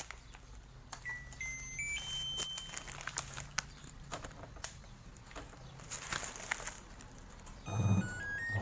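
Sharp top-load washing machine's touch control panel playing a rising series of short beep tones about a second in and again near the end, over a low steady hum from the machine's drum motor and scattered light clicks.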